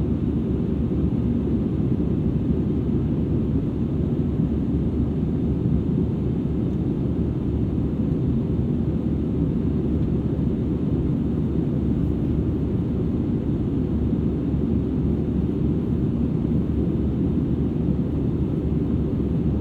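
Steady, low cabin rumble of an Airbus A320-200ceo airliner in flight, heard from a rear seat: engine and airflow noise with no changes or events.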